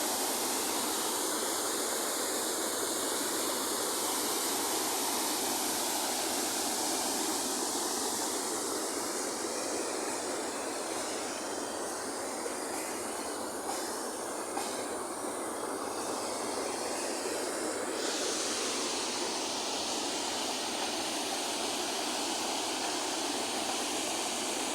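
Waterfall pouring into a river pool, a steady rush of falling water; its hiss turns brighter all at once about eighteen seconds in.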